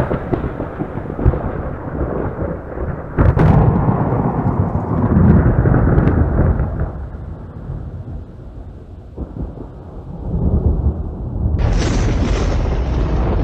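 Thunder rumbling, with a sharp crack about three seconds in. The rumble dies down for a few seconds, then a loud, brighter peal of thunder breaks near the end.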